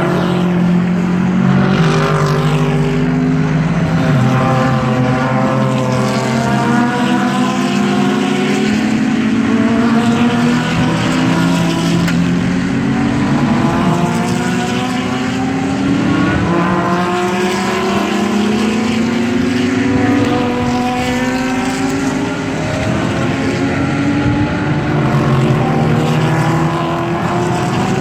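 A pack of GT race cars accelerating out of a slow corner, one after another. Their engine notes overlap and rise in pitch again and again as each car pulls up through the gears.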